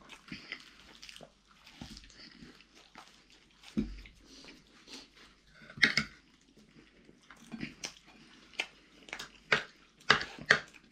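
Close-up eating sounds: biting and chewing food, with irregular crunchy clicks and smacks.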